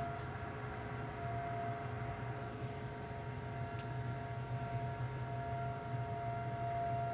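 Outdoor warning siren sounding a steady tone in a routine siren test, held at one pitch over a low hum.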